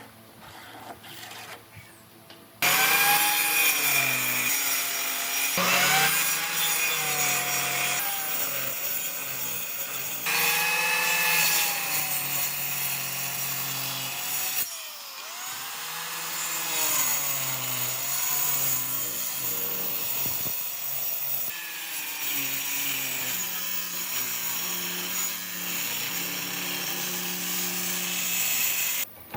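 A power tool working wood, its motor pitch dipping and recovering as it bears into the wood. It starts abruptly after a short quiet opening and breaks off sharply several times.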